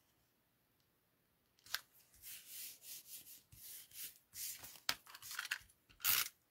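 Paper cardstock being handled: a light tap, then a run of short, irregular papery rustles and rubs.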